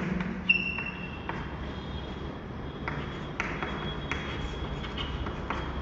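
Chalk tapping and scratching on a chalkboard as words are written, a series of short sharp ticks, with a thin high squeak of the chalk.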